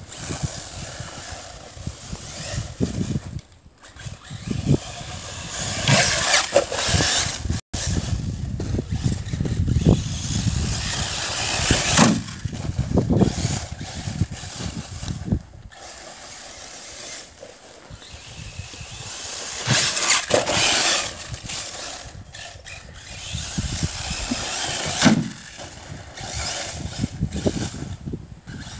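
Arrma Typhon 6S RC buggy racing laps on a grass and dirt track: its brushless motor whines in repeated throttle bursts, rising and fading as the car comes near and moves away, with its tyres tearing through the dirt.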